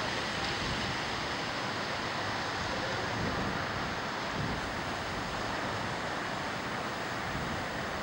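Steady rush of wind, with gusts buffeting the microphone in an uneven low rumble.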